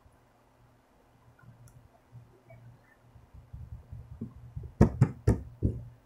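Hands working soft slime on a tabletop: fingertips pressing and patting it with soft low thumps, then a quick run of three or four sharp clicks near the end as a flattened piece is peeled up off the table.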